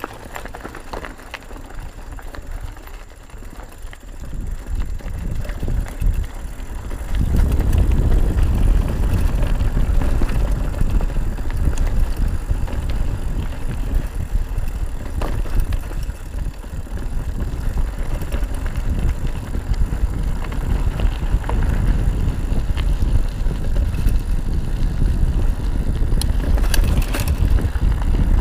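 Mountain bike riding over a rough dirt and gravel track: tyres rolling and the bike rattling, with wind buffeting the microphone. The low rumble grows much louder about seven seconds in.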